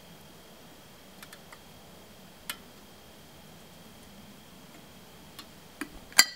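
A metal cooking pot with a wire bail handle and lid being handled: a few faint scattered ticks, then a sharp metallic clink with a short ring just after six seconds.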